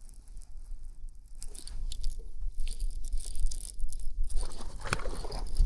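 Wind buffeting an open camera microphone: a steady low rumble with irregular crackling and rustling from handling, and a louder rustling burst about five seconds in.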